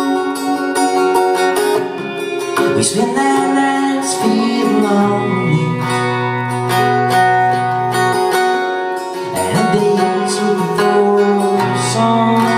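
A live band playing a song: strummed acoustic guitar and electric guitar over bass and drums, with cymbal strokes throughout.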